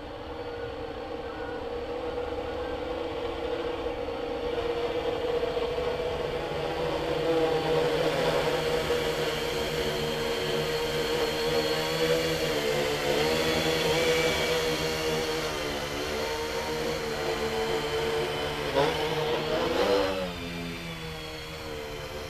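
Electric R/C quadcopter built as a Lunar Module model, its motors and propellers buzzing in flight. The buzz grows louder as the craft comes close overhead, and its pitch wavers up and down with throttle changes. Just after twenty seconds it drops off sharply and turns quieter.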